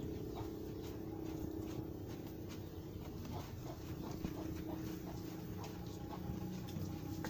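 Cattle eating dry grass from a concrete trough: irregular crunching and rustling of hay as they bite and chew, over a steady low hum.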